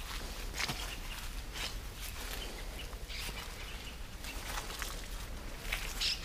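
Footsteps crunching through dry leaves and grass, in an irregular walking rhythm of short crackly strokes.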